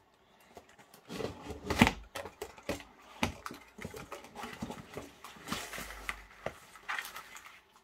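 Cardboard shipping box being handled: its plastic strapping band pulled off and the box shifted and lifted, giving a run of clicks, scrapes and knocks, the loudest just under two seconds in.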